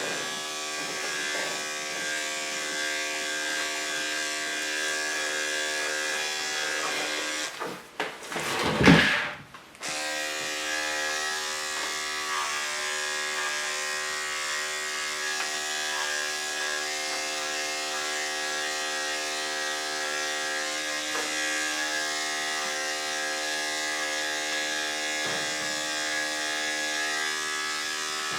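Electric dog-grooming clippers with a #4 comb guard, buzzing steadily while clipping a dog's head. About eight seconds in the clippers stop for roughly two seconds, with a loud bump or knock in the gap, then run again.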